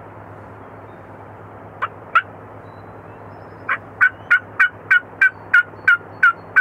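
Turkey yelping: two single sharp yelps about two seconds in, then a steady run of about nine yelps, roughly three a second. Under it is a steady low hum from distant orchard frost fans.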